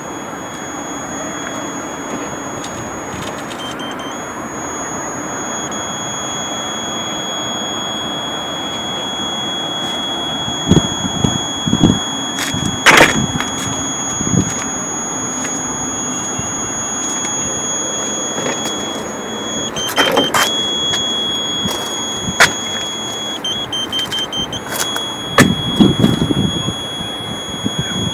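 A steady high electronic pointing tone from a Ka-band satellite terminal during antenna alignment, stepping slightly in pitch a few times as the signal changes, over a constant hiss. Several sharp knocks and handling thumps come in the second half, the loudest about halfway through and again about two-thirds of the way in.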